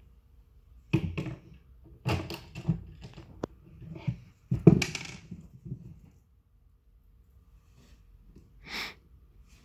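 A run of knocks and clatters from cabinet parts, rails and hardware being handled and set down, the loudest knock about halfway through, then a short rush of noise near the end.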